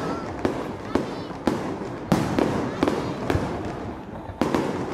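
Aerial fireworks shells bursting in quick succession during the finale of a display: a sharp bang about every half second, with crackling between.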